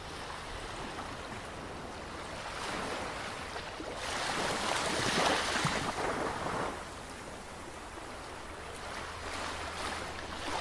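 Sea waves washing in, a rushing surge that swells to its loudest about halfway through and rises again near the end.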